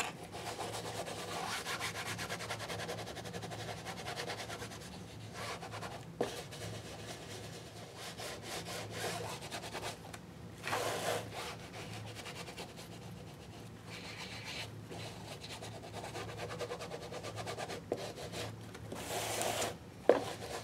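An ink pad rubbed back and forth along the edges of a patchwork vegan-leather and paper journal cover, inking them: a steady scratchy rubbing with a few short pauses and a louder stroke about halfway and near the end.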